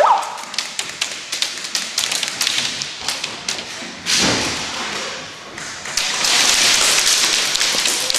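Airsoft gunfire in a plywood arena: a steady patter of sharp pops and BB impacts on the wooden walls, with heavier bursts about four seconds in and again from about six seconds on.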